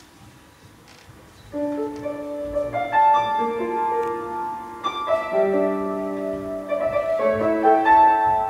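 August Förster grand piano played solo. It starts about a second and a half in with a melody over held chords.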